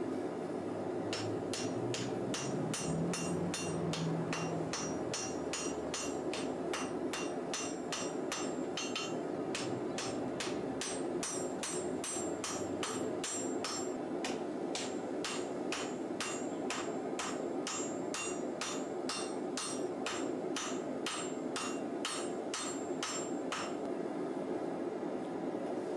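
A 3-pound doghead hammer forging a hot W1 steel bar on an anvil, striking steadily at about two blows a second, each with a short metallic ring. The blows stop near the end, over a steady rushing noise.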